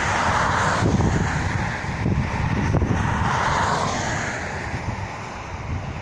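Cars passing on the road, their tyre noise swelling just at the start and again about three seconds in, then fading, with wind buffeting the microphone throughout.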